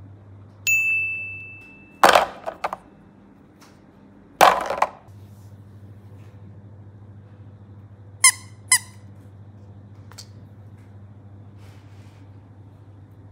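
Toys being handled: a short ringing ding, then two sharp loud knocks a couple of seconds apart, and later two brief squeaks in quick succession, all over a steady low hum.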